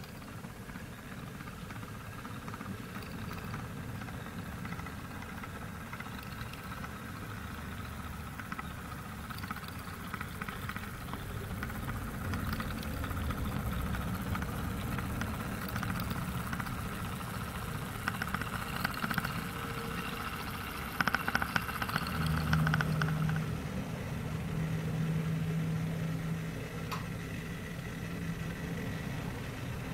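Model railway locomotives running on the layout: a steady mechanical running noise of a model motor and wheels on the track. It grows louder from about twelve seconds in as a model diesel shunter passes close by, with a few sharp clicks around twenty seconds and a steady hum for several seconds after.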